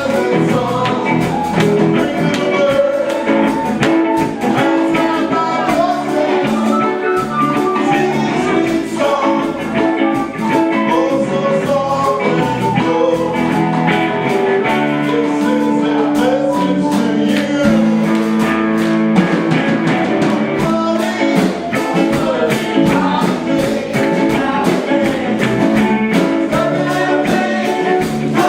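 Music: a song with a singing voice over guitar and a steady beat.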